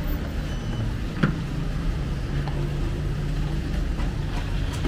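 Steady low rumble of street traffic and vehicle engines, with a single sharp knock about a second in.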